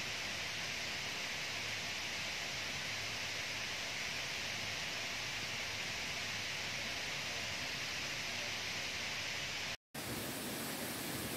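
Steady, even hiss with no distinct events; it cuts out for an instant about ten seconds in, then carries on.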